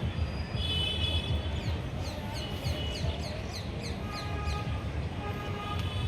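A small bird chirping: a quick run of short falling chirps, several a second, through the middle. Underneath are a constant low rumble and some steady high tones.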